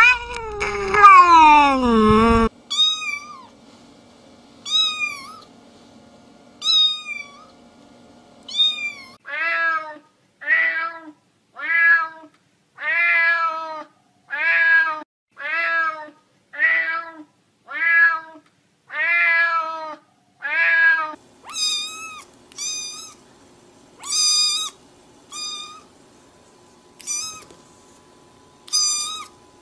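Cats meowing, one clip after another. A drawn-out yowl falls in pitch and ends a couple of seconds in. Then come high, thin mews about every two seconds, a run of lower, fuller meows about one a second, and near the end high mews again about one a second.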